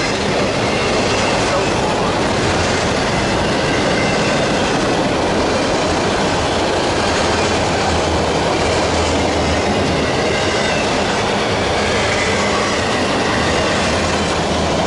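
Loaded autorack freight cars of a passing train rolling by close at hand: a steady, loud noise of steel wheels running on the rails.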